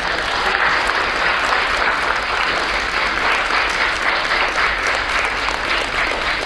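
A large audience of schoolchildren applauding in a steady, sustained round of clapping.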